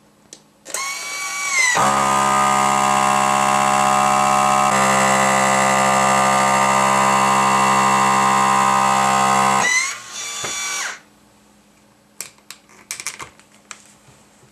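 Countertop vacuum sealer's pump running to pull the air out of a vacuum marinating canister through a hose: it starts with a rising whine, settles into a loud steady drone for about eight seconds, then drops away and stops. A few light clicks of the hose and lid being handled follow.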